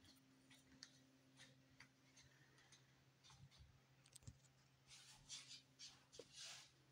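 Near silence: room tone with a faint steady hum and scattered soft clicks, then a few brief rustles near the end.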